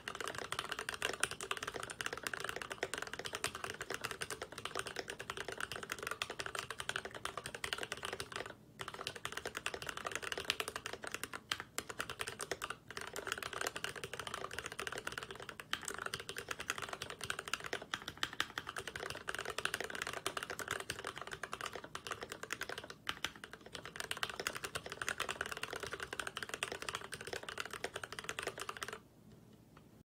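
Fast continuous typing on an Idobao ID80 V1 mechanical keyboard with lubed Gateron Milky Yellow linear switches, lubed Everglide stabilizers and Akko keycaps: rapid overlapping keystrokes with a few brief pauses. The typing stops about a second before the end.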